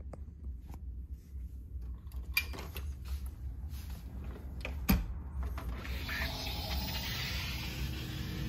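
A glass sliding door being opened: a few light clicks and taps, a sharp click of the latch about five seconds in, then a steady rushing hiss as the door slides open.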